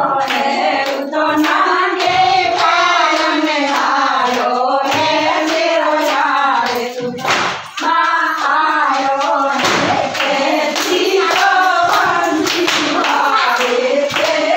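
Singing in a woman's voice, a folk-style melody, with hand clapping keeping time throughout.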